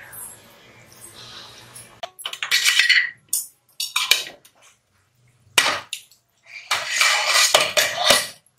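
Cookware clattering against a kadai: a glass lid and a steel spatula knocking and scraping against the pan in several short bursts, the longest near the end.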